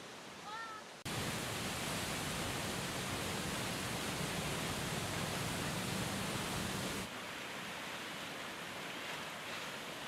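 Rushing floodwater: a swollen, muddy river in spate making a steady roar of noise. It jumps abruptly louder about a second in and drops back abruptly at about seven seconds.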